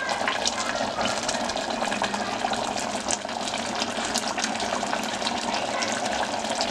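Spicy mutton liver and tomato gravy sizzling and bubbling steadily in an open aluminium pressure cooker on the stove, with small scattered crackles and pops.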